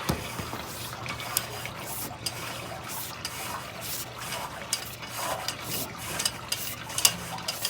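Water running and gushing through a drain line, with scattered sharp clicks and a low steady hum underneath.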